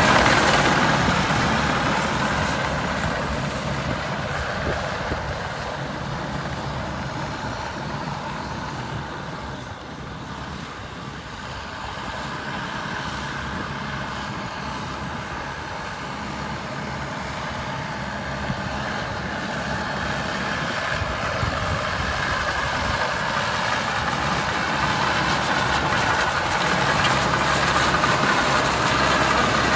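CAT D6R2 crawler bulldozer's diesel engine running steadily, fading over the first ten seconds and then building back up louder toward the end.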